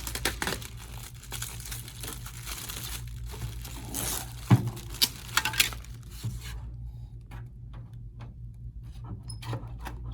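Protective plastic liner film being peeled off a clear plastic sneeze guard sheet: a continuous crackly hiss with a few sharp cracks around the middle, stopping about six and a half seconds in, followed by lighter scattered taps as the sheet is handled.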